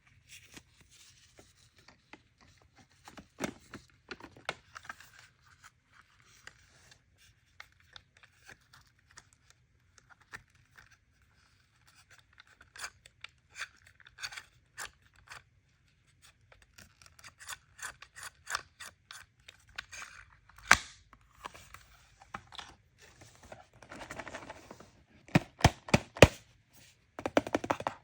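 Hands opening and handling toy packaging: a string of short clicks, scrapes and tearing, crinkling rustles of plastic and cardboard, busier and louder in the second half.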